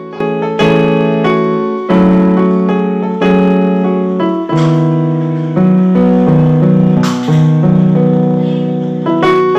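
Background music: a keyboard playing slow, held chords that change about every second or so, each new chord struck and then fading slowly.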